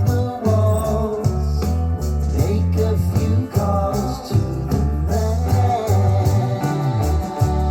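A rock song with a singer, guitar and heavy bass, played back through a portable Bluetooth speaker for a sound test.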